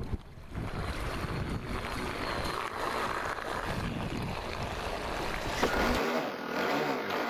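Electric-powered RC speedboat running across choppy water, with splashing and wind buffeting the microphone. Near the end the sound changes abruptly to a close, steady electric-motor whine over rushing water, heard from on board a second RC boat.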